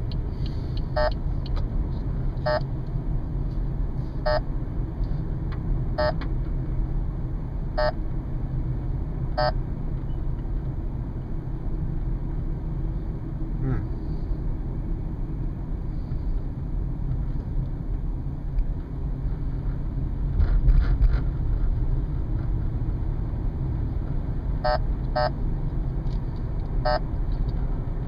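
Whistler XTR-690SE radar detector sounding a K-band alert: short beeps repeating slowly, about one every second and a half to two seconds, stopping about ten seconds in and returning as three beeps near the end. The slow repeat is that of a weak, long-range signal. Under it runs the steady road and engine noise of the car's cabin.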